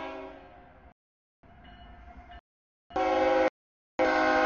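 CSX freight locomotive's air horn sounding a steady chord as the train nears the grade crossing. The sound cuts in and out abruptly, with dead silent gaps between blasts, and is loudest in the two blasts near the end.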